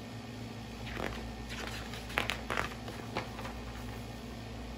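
Page of a picture book being turned: a few short paper rustles and flaps, mostly in the middle second or two, over a low steady hum.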